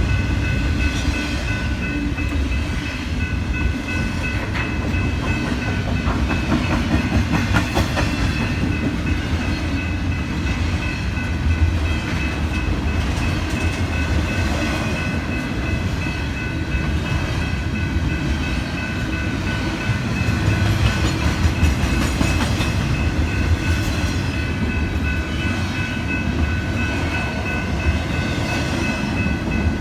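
A train's cars rolling steadily past, with a continuous low rumble and the clickety-clack of wheels over the rail joints, and a thin steady high ringing held over the noise.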